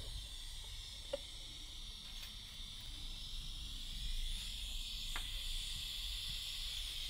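A faint steady hiss with two light clicks, about a second in and about five seconds in, as a TIG torch and a filler rod are set against a thin steel tab on a steel tube.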